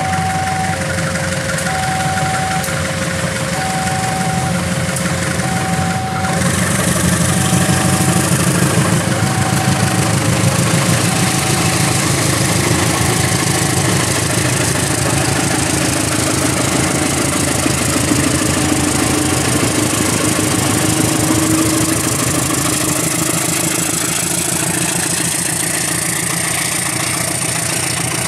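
CC 201 diesel-electric locomotive (GE U18C) accelerating away with its train, its engine running louder from about six seconds in. A two-tone warning alarm of alternating high and low notes sounds throughout, fading out about two-thirds of the way through. A faint high whine rises near the end.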